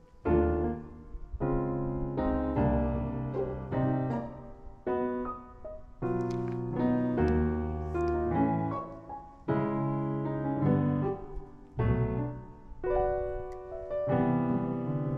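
Background piano music: chords struck about once a second, each ringing and fading.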